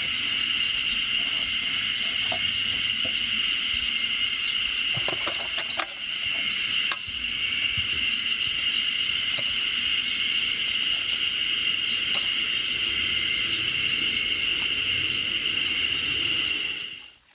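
Steady, high-pitched insect chorus droning without a break, with a few light clicks and clinks about five to seven seconds in.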